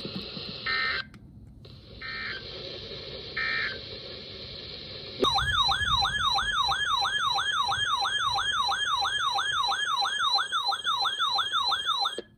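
Weather radio hiss broken by three short bursts of data tones, the digital header of an emergency alert. About five seconds in, an electronic alert siren starts: a loud wailing tone sweeping up and down almost three times a second, which cuts off abruptly after about seven seconds, announcing a tornado warning.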